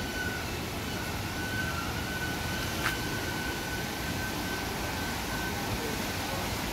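Rushing water of a fast river running over rapids, a steady even wash. A faint steady high whistle-like tone sounds over it and fades out near the end, and there is a single click about three seconds in.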